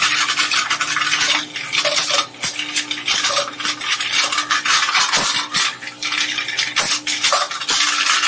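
Twin-shaft shredder's toothed cutters grinding and tearing apart a finned metal part: continuous metallic crunching and rattling with many sharp clanks, over a steady hum from the drive.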